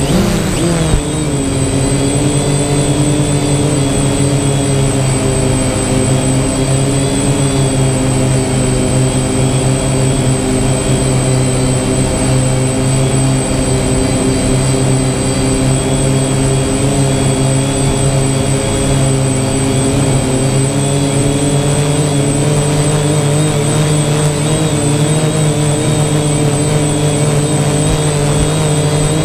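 DJI Phantom quadcopter's electric motors and propellers whining in flight, picked up by the GoPro mounted on the drone itself. The several-toned hum drops in pitch about a second in, then holds steady.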